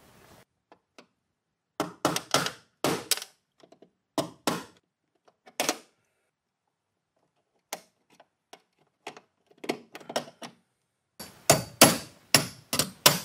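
Hammer striking a screwdriver to punch out a knockout in a steel breaker-panel enclosure, metal-on-metal impacts. A few single strikes come first, then quieter clicks of the tools working the knockout, then a quick run of strikes near the end.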